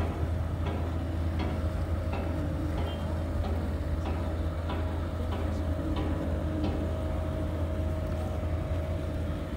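A boat engine running steadily at cruising speed: a low, even drone with a steady higher hum over it.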